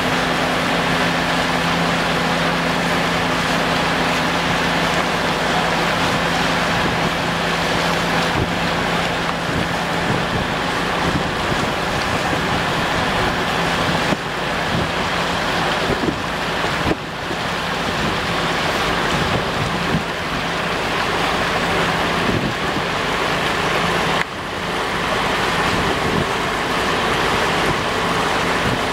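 A boat's engine running steadily, a constant low drone, under loud rushing water and wind noise on the microphone as the boat moves through choppy sea.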